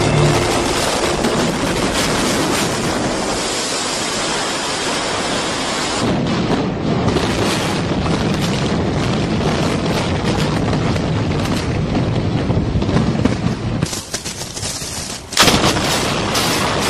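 Explosive demolition charges firing in rapid strings as buildings are brought down by implosion. The sound changes abruptly about six seconds in, and a sudden sharp blast comes about fifteen seconds in.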